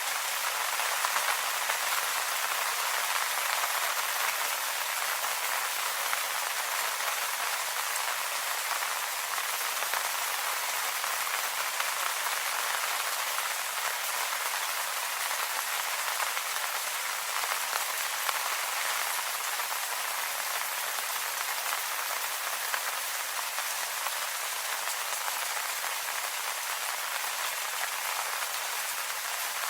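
Steady rain falling on leaves, an even patter of many drops with no let-up.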